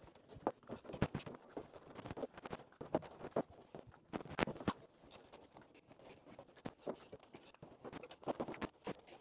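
Irregular light taps, clicks and scrapes of hands and a small glue bottle working along the wire-stitched seams of a thin plywood kayak hull, several a second, with a sharper knock about halfway through.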